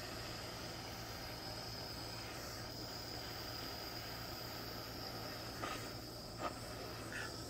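Small handheld butane torch hissing steadily as its flame scorches the edges of carved wooden letters, with a thin steady high whine over it. Three light clicks or knocks near the end.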